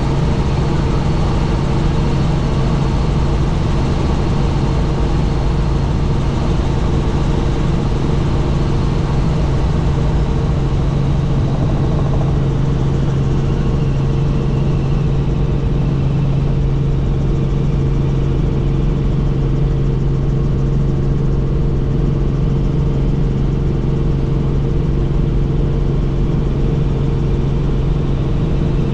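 Helicopter in flight: a steady, loud drone of turbine and rotors with a constant low hum underneath.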